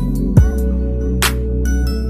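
Background music with a deep bass line, kick drum and snare hits over sustained keyboard notes.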